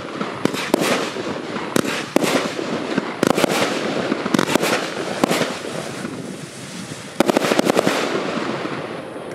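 A 68-shot, 25 mm consumer fireworks cake firing, with sharp reports every second or so over a steady crackle. About seven seconds in comes a rapid volley of bangs, the white glitter titanium-salute finale, and the crackle then fades.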